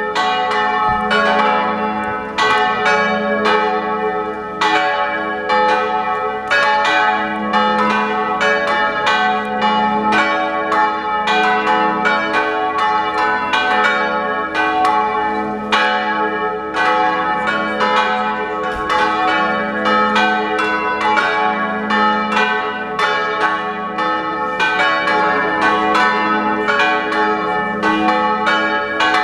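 Church bells pealing: several bells struck in quick, overlapping succession, a few strikes a second, each note ringing on into the next.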